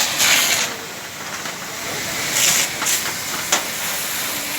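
Loud steady hissing rush that swells in surges in the first moment and again about two and a half seconds in, with a sharp click about three and a half seconds in.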